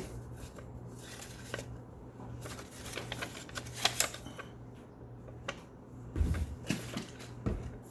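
Scattered small clicks and taps of a plastic posable figure and its parts being handled, with a couple of duller knocks near the end.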